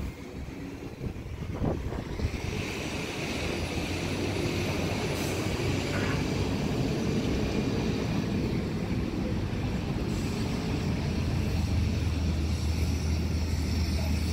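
Hybrid-electric transit bus approaching and pulling in, its low engine hum growing louder as it comes close.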